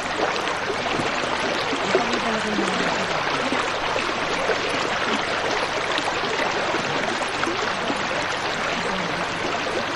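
Shallow river running over rocks, a steady rushing hiss of flowing water.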